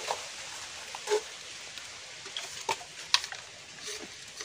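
A handful of short, scattered clicks and knocks of bamboo pieces being handled and fitted together as a bamboo mud-lobster trap is set, over a steady outdoor hiss.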